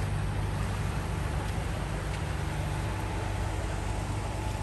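Steady low drone of a passing passenger boat's engine, over an even haze of wind and water noise.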